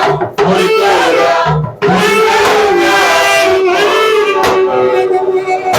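Music: a song with a gliding melodic lead, sung or played, over a low drum beat, with short breaks between phrases.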